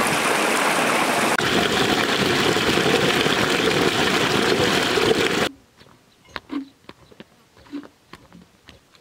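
A small stream cascading down a bank in a steady rush of water that cuts off suddenly about five and a half seconds in. After that it is quiet, with scattered light footsteps on dry dirt.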